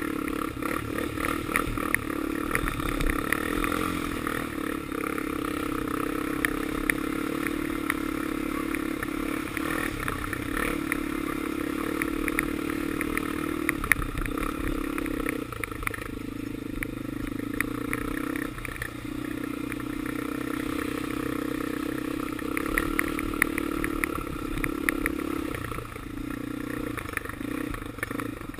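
Honda 400EX quad's single-cylinder four-stroke engine running steadily under way, its note dropping briefly a few times past the middle. Frequent short rattling clicks run over the engine sound.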